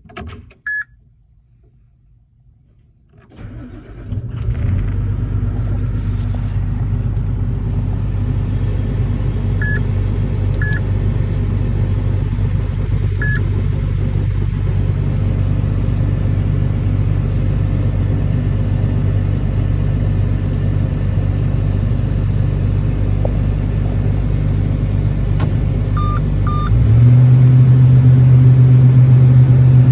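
Kobelco 380-10 excavator's diesel engine starting about three seconds in, then running steadily at low speed. Near the end it steps up to a louder, higher engine speed. A few short electronic beeps sound now and then.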